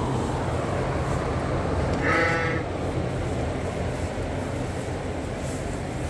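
A Suffolk sheep bleats once, briefly, about two seconds in, over a steady low rumble.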